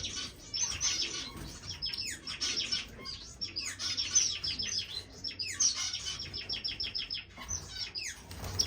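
Many small caged finches chirping together, overlapping rapid runs of short, high notes.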